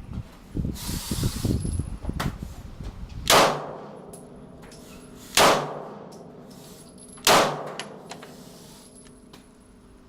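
Three shots from a 9 mm Glock 19 pistol, about two seconds apart, each followed by a ringing decay. A low rumbling noise comes before the first shot.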